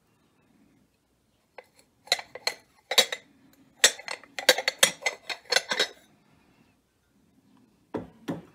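Glazed ceramic teapot and cup clinking and knocking against each other as the stacked set is handled and taken apart. A quick run of clinks comes from about two seconds in to about six seconds, and two more come near the end.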